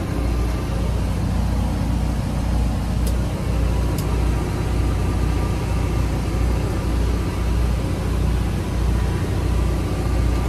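A steady low mechanical drone with a slow, uneven throb underneath, and two faint clicks about three and four seconds in.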